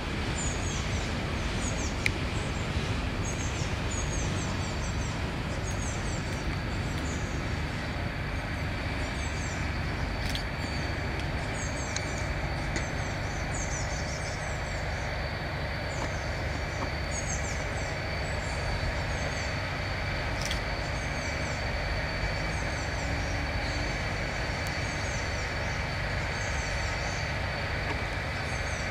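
Two Class 57 diesel locomotives' EMD two-stroke V12 engines running with a steady low rumble as they approach slowly. Birds chirp throughout, with a sharp click about two seconds in.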